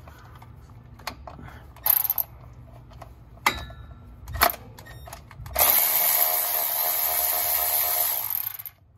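A few sharp metal clicks of the tool being fitted, then a cordless electric ratchet runs steadily for about three seconds, backing out a Torx bolt of the 722.9 automatic transmission's oil pan, and stops just before the end.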